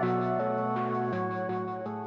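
Background music with sustained pitched notes that change every half second or so, fading out.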